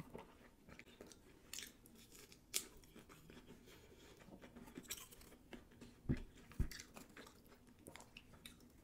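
Close-miked chewing of a sushi roll: soft wet mouth sounds with small clicks. About six seconds in come two low thumps, half a second apart, the loudest sounds here.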